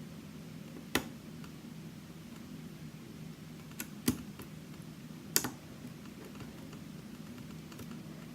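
Lock pick working inside Albert Lebel's Reckless challenge lock, giving a few sharp, irregularly spaced clicks as pins are lifted, over a steady low hum.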